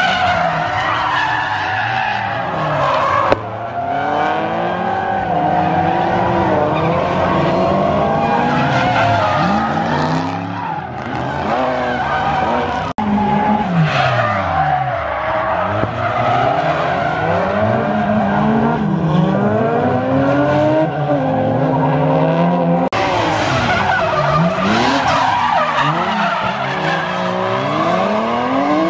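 Drift cars sliding, their engines revving up and down with overlapping rising and falling pitches while the tyres squeal and skid. There are abrupt cuts about 3, 13 and 23 seconds in, where one clip gives way to the next.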